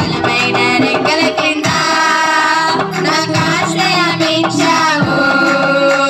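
Women and girls singing a Telugu Christian song together through microphones, over amplified musical accompaniment.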